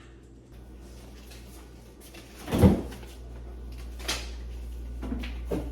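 Household knocks: one loud thump about two and a half seconds in, then two lighter knocks, over a steady low hum.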